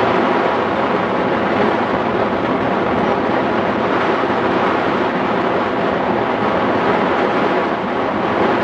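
Steady rush of wind from the airflow over a microphone on a hang glider in flight, an even noise with no engine or voice in it.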